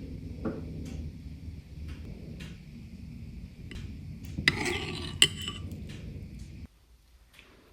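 Cutlery clinking against a dish: scattered light taps, then a busier clatter with one sharp clink about five seconds in, over a low steady background hum that stops abruptly near the end.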